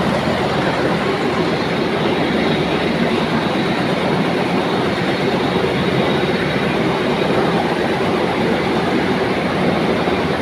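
Comber machines and other textile-mill machinery running: a loud, steady, dense mechanical noise with no pauses.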